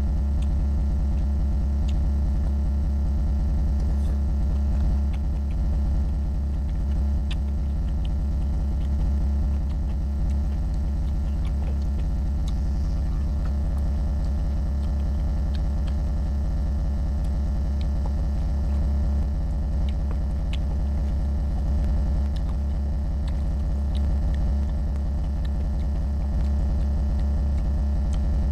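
Steady low hum throughout, the loudest sound, with faint scattered clicks of a man chewing mouthfuls of rice and pork curry eaten by hand.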